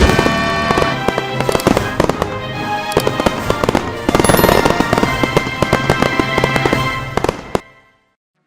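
Animated-cartoon soundtrack: background music layered with dense, rapid popping and crackling sound effects, fading away about seven and a half seconds in.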